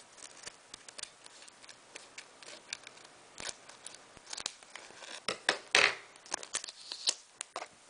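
Pokémon booster pack and trading cards being handled: a scatter of small clicks and crackles from the foil wrapper and card edges, with louder crinkling bursts a little past the middle.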